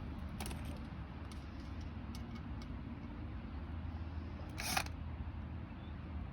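Hands working with metal parts and screws during a caravan lifter-arm repair: a few light clicks, a sharp click about half a second in, and a louder knock near the end, over a low steady hum.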